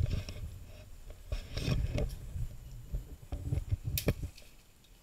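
Irregular knocks, rattles and low rumbling from a mountain bike and its mounted action camera jolting over a rough, leaf-covered dirt trail. A couple of sharp clicks come about four seconds in, then it goes much quieter.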